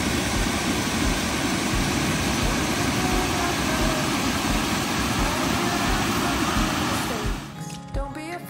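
River water rushing over rocky rapids and small falls, a loud steady white-water noise with a faint steady music beat underneath. About seven seconds in the water sound cuts off and music with a singing voice takes over.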